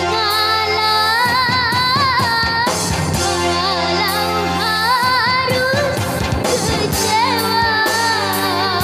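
Dangdut song: a young girl's high voice singing long held notes with a wide vibrato and ornamented turns, over a steady band accompaniment.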